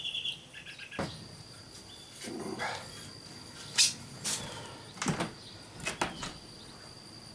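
A bird's short chirping trill, then a few scattered knocks and taps as a long aluminium level is handled among plywood bulkheads inside a boat hull.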